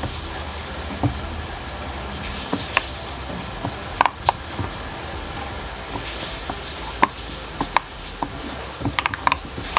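Silicone pop-it fidget toy's bubbles pressed in by fingertips, giving short soft pops at an uneven pace, with a quick run of them near the end. A steady low hum runs underneath.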